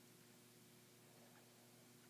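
Near silence: room tone with a faint steady hum and hiss.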